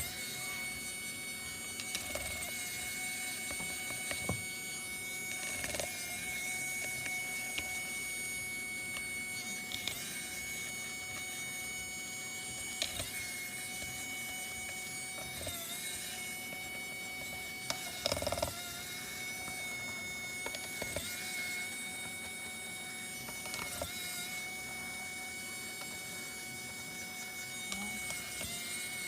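A steady mechanical whine with a high pitched tone, the hum of a small electric machine on the repair bench, with a few light clicks and taps now and then.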